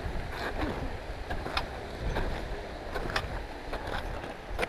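Boots crunching up a hard, frozen snow slope, with trekking poles planting into the snow, in a steady walking rhythm of roughly one or two crunches a second. Wind rumbles on the microphone underneath.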